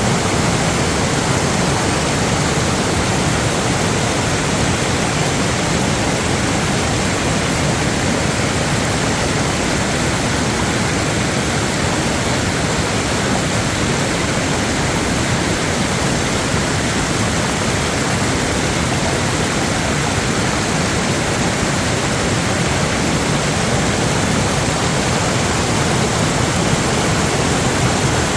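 Steady, loud rush of running water, even and unbroken throughout, as from a swollen creek or floodwater pouring after heavy rain.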